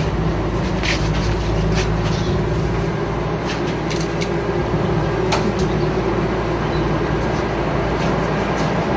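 Steady low mechanical drone with a hum, with a few faint scattered clicks.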